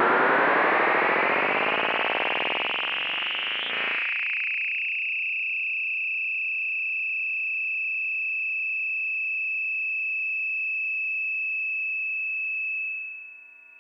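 Monacor EEM-1200 bucket-brigade analog delay self-oscillating with its feedback at maximum and no input. A dense, many-toned buzz rises steadily in pitch for about four seconds, then settles into one steady high tone that dips in level near the end.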